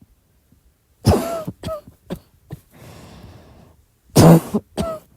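A woman's dry cough, in two bouts about three seconds apart. Each bout is a sharp, loud cough followed by a weaker one, with a softer breathy hiss between the bouts.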